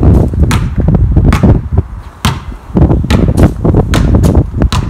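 A basketball bouncing on outdoor paving stones, a series of sharp strikes about one or two a second, over a steady low rumble.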